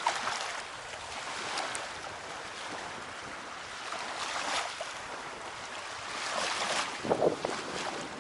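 Sea surf washing onto a sandy beach, swelling and easing, with wind on the microphone and a couple of low gusts buffeting it about seven seconds in.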